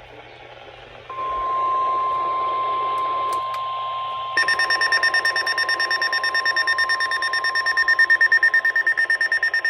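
NOAA Weather Radio's warning alarm tone, a steady high tone over radio hiss starting about a second in. A few seconds later a weather-alert receiver's own rapid beeping alarm joins it, about seven beeps a second. The steady tone stops near the end while the beeping goes on.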